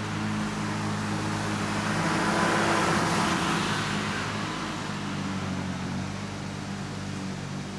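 Lawn-Boy 10520's two-stroke engine running steadily as it mows thick, damp grass, heard from a distance. A car passes on the road, rising to the loudest point about three seconds in and fading by about five seconds.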